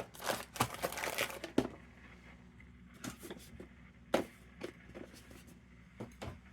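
Lantern burner and wick being handled at the bench: a close run of rustling and light clicks over the first second and a half, then scattered single small clicks of metal parts.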